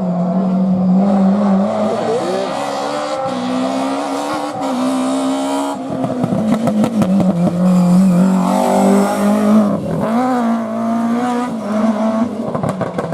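Historic rally car engine at full throttle, its pitch climbing and dropping with each gear change. Bursts of sharp crackles come about six seconds in and again near the end.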